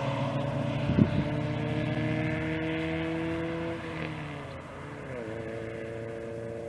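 Honda Civic's D15B2 1.5-litre four-cylinder through an R&D thermal exhaust, driving away. The engine note climbs slowly as it accelerates, drops about four to five seconds in as it shifts gear, then holds steady while fading. There is a brief thump about a second in.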